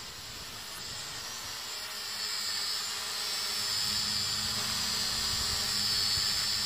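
Hubsan H502e quadcopter's motors and propellers whining steadily as it hovers low, growing louder over the first few seconds.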